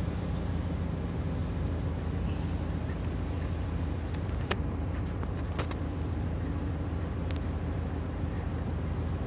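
Green minibus engine idling while the bus stands still, a steady low hum, with a few light sharp clicks about halfway through.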